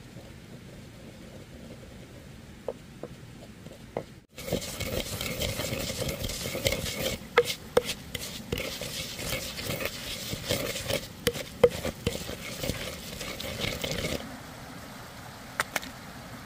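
Wooden pestle grinding oily herbs and seeds in a wooden mortar: a wet, rough scraping with frequent sharp knocks. It starts suddenly about four seconds in, after faint outdoor quiet, and stops about two seconds before the end.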